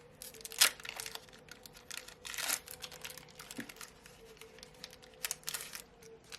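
Pokémon trading cards and their foil pack being handled close to the microphone: a run of quick clicks and rustles, with a sharp snap about half a second in and a short crinkling rustle about two and a half seconds in.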